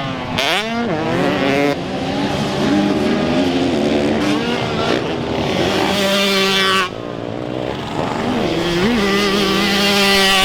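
Two-stroke motocross bike engines revving hard on track, pitch climbing and falling again and again, with sudden changes in sound about two seconds in and again about seven seconds in.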